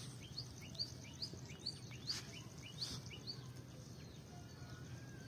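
A bird calling a quick series of about eight short, rising chirps, each a paired high note, that stops about three seconds in. Beneath it is a low, steady background hum.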